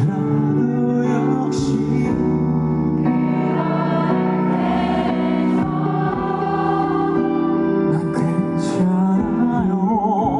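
Live band performance of a slow pop ballad with singing, a held vocal note with vibrato near the end.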